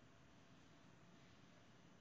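Near silence: a faint, even background hiss.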